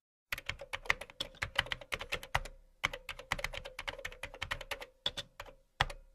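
Typing sound effect: rapid, irregular keyboard key clicks matching text being typed out on screen, with brief pauses about two and a half seconds in and near the end.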